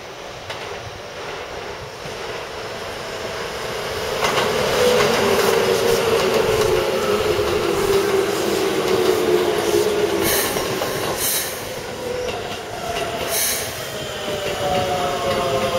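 Blue Keikyu electric train running past close by: the rush of wheels on rail swells from about four seconds in, with a whine that slowly falls in pitch. A few sharp clicks come from the wheels, and another falling whine follows near the end.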